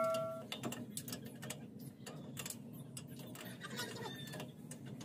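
A bell-like ding sound effect rings out and stops about half a second in, followed by faint, irregular light clicks and ticks over a low background hum.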